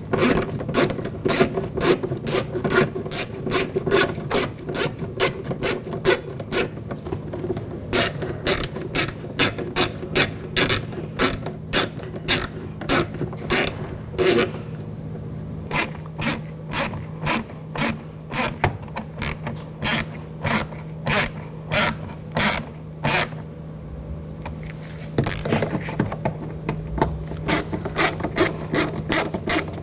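Hand ratchet clicking steadily, about two to three clicks a second, as screws are tightened down, with a couple of short pauses between screws.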